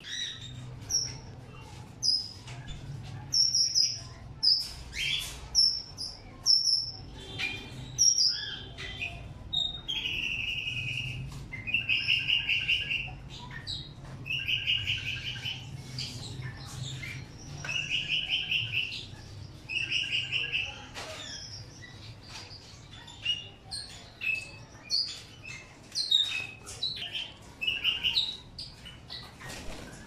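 Small aviary finches and canaries chirping and calling: many short high chirps, with a string of buzzy calls about a second long each in the middle. A low steady hum runs underneath for the first two-thirds.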